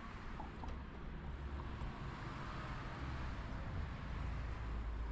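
Steady city street traffic: cars passing on the road alongside, over a low rumble that grows slightly louder toward the end.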